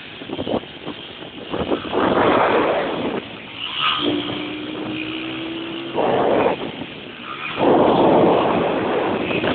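Motorcycle engine revving in loud, rough surges with quieter stretches between, as the bike is ridden on its back wheel. A thin steady tone sounds for about two seconds midway.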